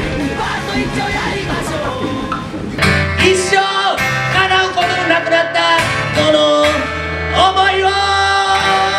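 Live music: a man singing to a strummed acoustic guitar, with long held vocal notes. About three seconds in, the sound changes abruptly from a busier, denser music mix to the guitar and voice.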